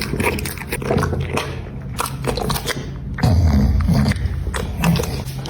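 American Pocket Bully dog biting and chewing its food, with rapid irregular crunching and wet mouth clicks, louder and deeper for about a second some three seconds in.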